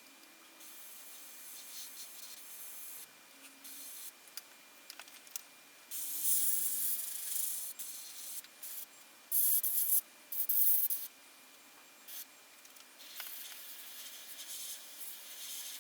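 Airbrush hissing in short trigger bursts, starting and stopping abruptly, the loudest near the middle, as air and water-based paint are blown onto a painted garage door.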